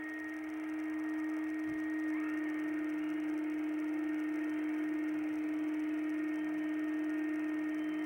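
Air-Way Centurion vacuum cleaner running with a steady hum as its power head is worked over a rug, getting slightly louder a couple of seconds in.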